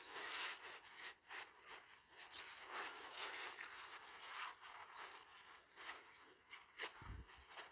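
Blue shop towel being rubbed and wiped over a hatchet's steel head: faint, irregular rustling and scraping of paper on metal, with a sharp click and a soft thump near the end.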